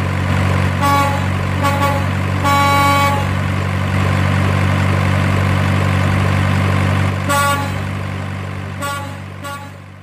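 Truck engine running steadily with horn honks: two short toots about a second in, a longer blast soon after, then more short toots near the end as the sound fades away.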